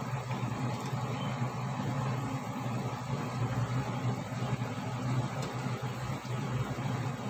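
Steady low rumble and hiss of a gas stove burner heating a pot of simmering pork, with a faint click a little over five seconds in.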